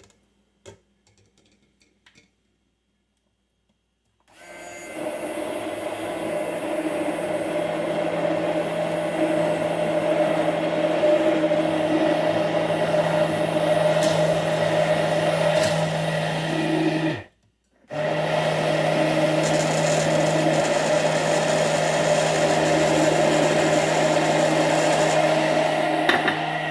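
Immersion blender motor running steadily as it emulsifies aquafaba and oil into mayonnaise. It switches on about four seconds in, cuts out briefly about two-thirds of the way through, and starts again.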